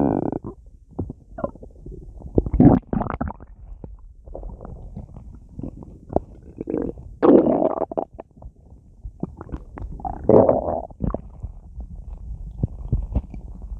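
Human stomach full of carbonated soda gurgling and rumbling: irregular gurgles and small pops, with a few much louder gurgles a few seconds apart, as gas and liquid move through the gut.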